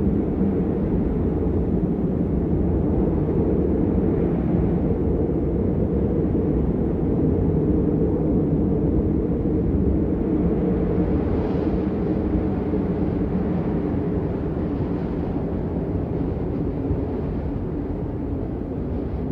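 Steady rain noise, a dense low rush with little high hiss, even throughout.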